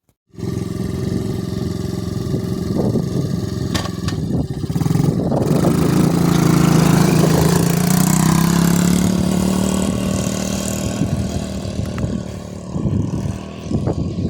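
Vax Airlift Steerable Pet Max upright vacuum cleaner running with a steady motor drone. It cuts in abruptly, gets louder through the middle and eases off near the end.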